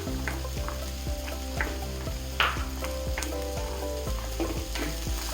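Cashews and raisins frying in a hot pan: a steady sizzle with crackles, a few sharp pops about two and a half and three seconds in, and the scrape of stirring.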